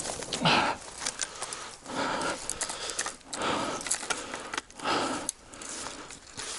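A person breathing hard, a noisy breath roughly every one and a half seconds.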